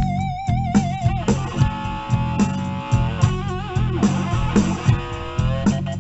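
Blues band playing live: a lead guitar holds notes with a wide, wavering vibrato over bass and a steady drum beat.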